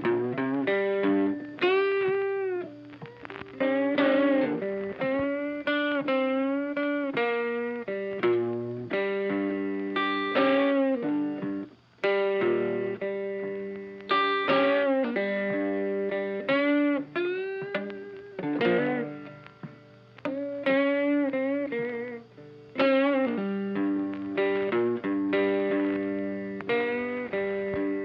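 Background blues music led by electric guitar, with notes bent up and down in pitch.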